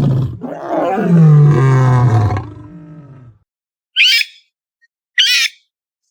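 An animal's long, deep roar that slides lower in pitch and fades out, followed after a pause by two short, high, squeaky calls.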